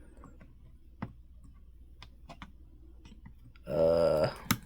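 Faint clicks and taps of small parts being handled while an M.2 SSD is fitted into a motherboard slot. Near the end, a short, loud, pitched human vocal sound that falls slightly, followed at once by a sharp click.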